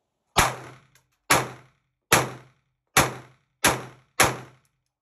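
Six gunshots from a Walther P22 .22 LR pistol, fired singly about a second apart and coming a little quicker toward the end, each with a short ringing tail.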